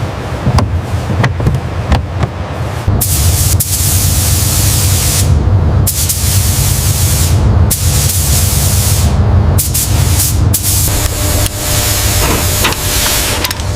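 Air spray gun hissing in long bursts with short pauses between passes, over a steady low hum, as paint is sprayed onto a car body. The hiss starts about three seconds in, after a few light clicks.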